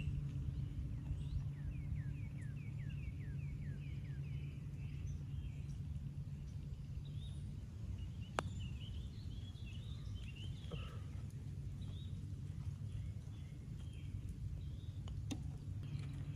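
Birds chirping over a steady low background hum, opening with a quick run of falling chirp notes. About eight seconds in, a single sharp click: the putter striking the golf ball.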